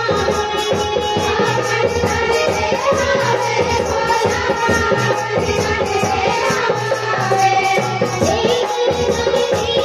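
Live Chhattisgarhi jas devotional song: a girl's voice singing through a microphone over a drum and small hand cymbals (manjira) keeping a steady beat.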